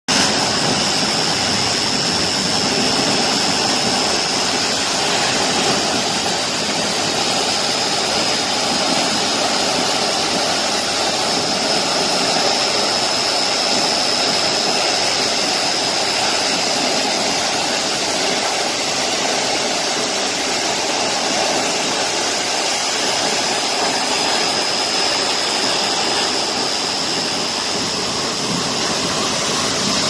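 Tall waterfall in heavy flow: a loud, steady rush of falling water crashing into its plunge pool.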